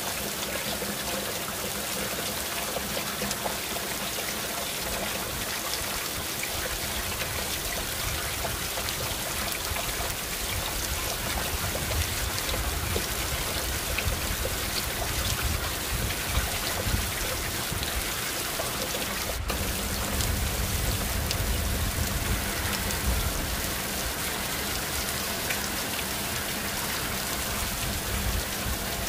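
Heavy rain pouring down steadily, a dense hiss of rain falling, heard through an open window. A low rumble comes and goes beneath it in the second half.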